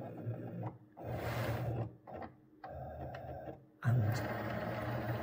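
Cricut Maker 3 cutting machine's carriage and feed motors whirring in several short runs with brief pauses between them, as the machine moves its optical sensor across the print-and-cut sheet to find the black registration border.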